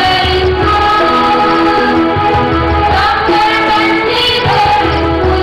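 A choir of schoolboys and schoolgirls singing a song together into microphones, holding long notes that change every second or so.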